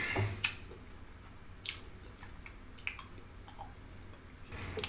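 A drink sipped through a straw: a few short, faint wet slurps and clicks, spread out with pauses between them.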